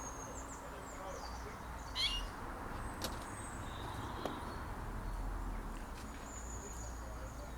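Small birds calling, with thin high whistled notes and a few short chirps, over a steady low rumble of road traffic.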